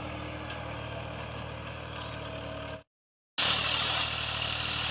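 Massey Ferguson 260 tractor's three-cylinder diesel engine running steadily under load while pulling an 11-tine cultivator. The sound cuts out for about half a second just before the middle, then returns louder.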